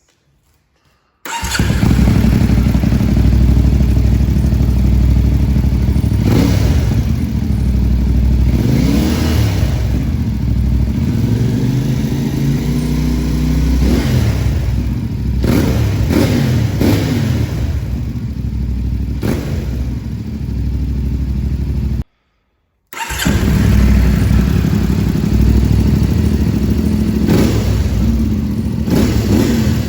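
CFMOTO 450MT motorcycle's parallel-twin engine running through its exhaust, blipped up and back down in repeated revs between steadier idle stretches. It comes in abruptly about a second in and drops out briefly after about 22 seconds before running again.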